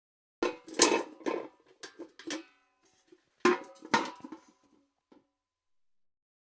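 Steel bucket clanking: a quick run of metal knocks and rattles with a short ringing tone after each, then a second run about three seconds in that fades out.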